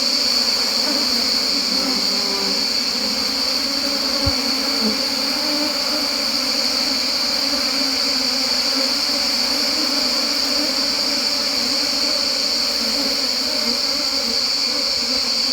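Wild honeybee colony buzzing steadily as the bees swarm out of their opened tree-hollow nest after smoking, over a constant high-pitched insect whine.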